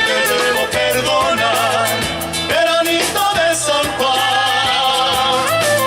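Latin band music with a steady beat and a wavering melodic lead line.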